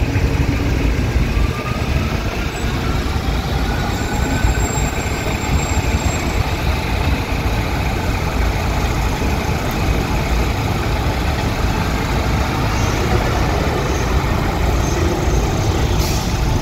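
São Paulo Metro electric train running, a steady loud rumble with a faint electric whine that rises in pitch over the first few seconds.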